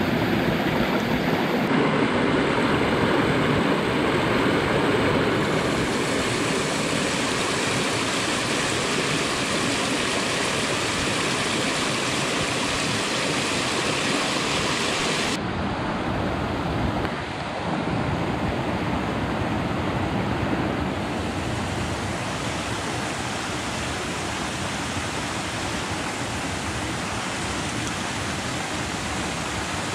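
Shallow rocky stream running over stones: a steady rush of water whose tone changes suddenly a few times.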